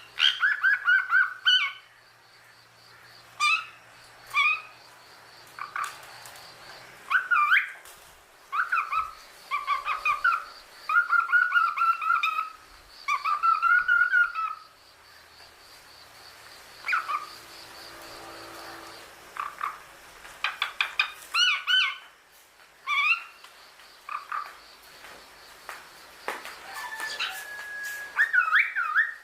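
Cockatiels chirping and whistling: bursts of short repeated calls with quieter pauses between, and near the end one held whistle note.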